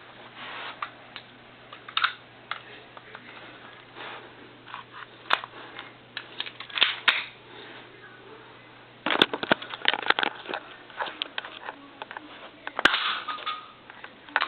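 Handling noise as someone rummages for a BB and handles a spring-powered airsoft pistol: scattered clicks and rustling, a dense run of rattling and clicks about nine seconds in, and one sharp click near the end, over a faint steady hum.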